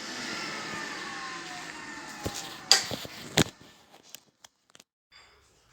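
Electric vacuum cleaner motor winding down, its whine falling steadily in pitch and fading over about three seconds. Then two sharp knocks and a few faint clicks as the cleaner is handled.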